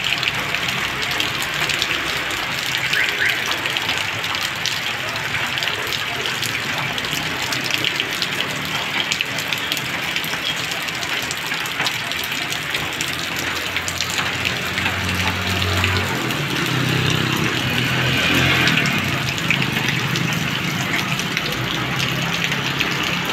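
Heavy rain pouring steadily onto a wet asphalt road, a dense constant hiss and patter. Motorbike engines hum past on the road about two-thirds of the way through.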